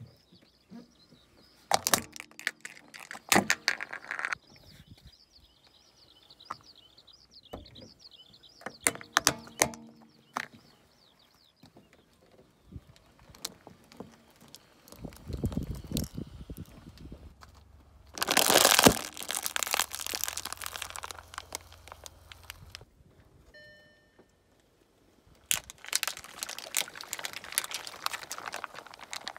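Car tyre rolling slowly over small objects on asphalt and crushing them, in several separate bouts of sharp cracks and crunches. The loudest is a long crunching burst about two-thirds of the way through, with a low rumble of the car underneath. Birds chirp faintly in the first few seconds.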